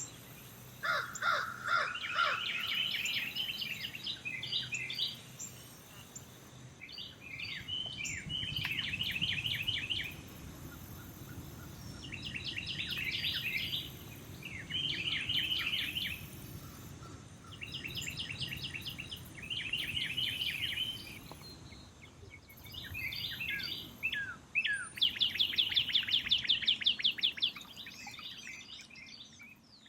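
A songbird singing, over and over, short phrases of rapid repeated notes, one phrase every two seconds or so, with a lower series of calls in the first couple of seconds.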